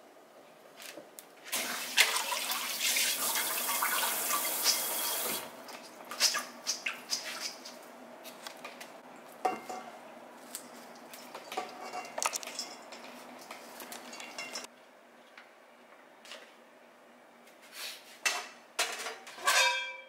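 A kitchen tap runs for about four seconds, then metal clatters and knocks come from a stainless-steel colander and bowl as rinsed bean sprouts and cabbage are drained. It goes quieter for a few seconds, then a few more metallic clatters come near the end, the last with a brief ring.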